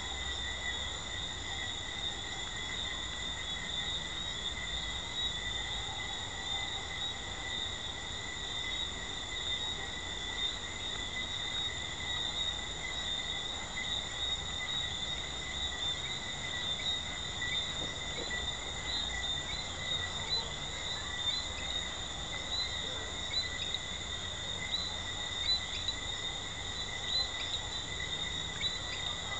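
Dense night chorus of Jamaican treefrogs: a steady high-pitched trill, with short single chirps standing out above it now and then, more often near the end.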